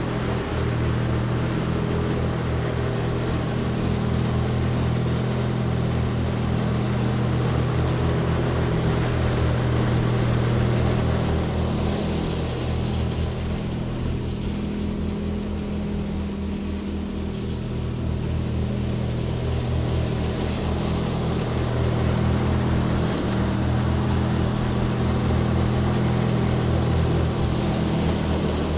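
Ride-on lawn mower engine running steadily, a little fainter in the middle and growing louder near the end as the mower comes closer.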